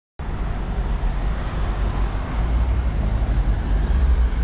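Outdoor street ambience: steady road-traffic noise with a heavy low rumble, cutting in abruptly just after the start.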